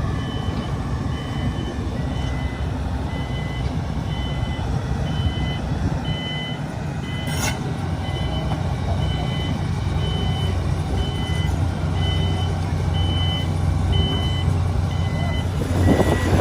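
Heavy construction vehicle's reversing alarm beeping in an alternating two-tone pattern, about two beeps a second, over the steady rumble of its diesel engine. A single sharp knock is heard about halfway through.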